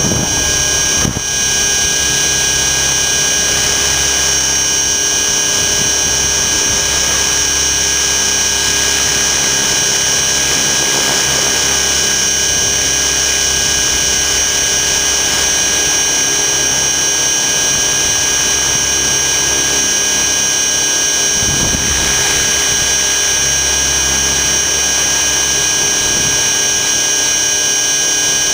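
Electric RC helicopter (Align T-Rex 600 ESP) in flight, heard from a camera fixed to its skid frame. The motor and gears whine steadily at several fixed pitches over rotor and drivetrain noise, with one brief knock about a second in.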